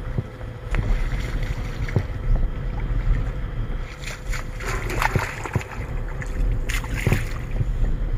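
Wind rumbling on the microphone, with bursts of splashing about halfway through and again near the end as a hooked bass is brought in to the shore.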